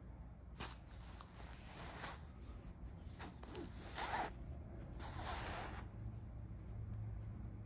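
Scratchy rustling and rubbing of a hand on a cat's fur and the fabric sofa cushion as the tail is handled: a run of short strokes lasting about five seconds, the loudest one a little after four seconds in.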